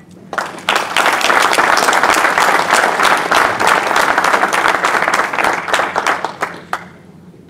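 An audience applauding. The clapping swells in just after the start and dies away near the end.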